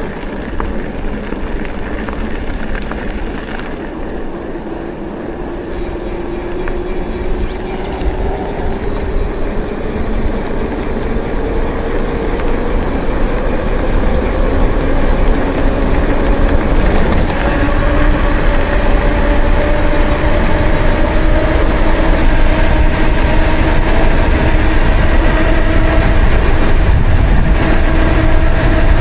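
Steady rolling rumble with a hum that rises slowly in pitch and grows louder over about fifteen seconds, then holds steady, as of a vehicle gathering speed and cruising.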